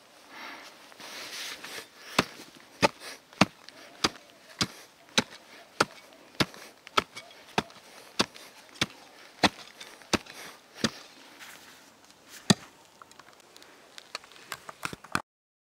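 Short-handled shovel digging a narrow pit in root-filled forest soil: a second or two of scraping earth, then sharp blade chops about every 0.6 s as it cuts through tree roots, ending in a few lighter scrapes and knocks.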